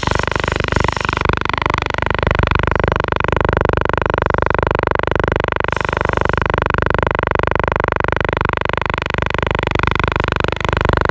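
DJI Zenmuse X5 gimbal motors buzzing steadily with a fast, even pulse: the gimbal is vibrating instead of holding still, a sign of its failure.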